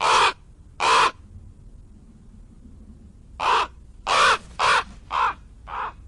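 Crow cawing: two short caws, then after a pause of about two seconds a quicker run of five more, the last one fainter.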